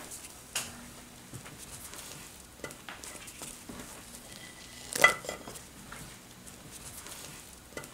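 Spatula stirring and scraping sticky melted marshmallow and matcha powder in a nonstick pan: soft scrapes and light clicks. About five seconds in there is one sharp, louder clatter with a brief ring as the red jujubes are tipped into the pan.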